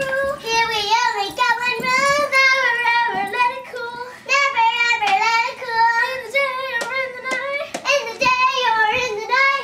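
A young girl singing in a high voice, holding long notes with a wavering pitch, with a short break about four seconds in.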